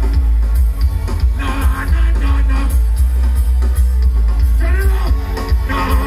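Live reggae band music played loud through a stage sound system, carried by a heavy, steady bass, with a vocal line rising over it a few times.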